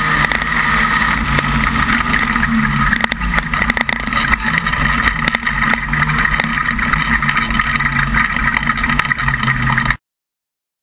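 Modified production speedway car's engine running steadily, heard from inside the car, with scattered sharp clicks around the middle. It cuts off suddenly near the end.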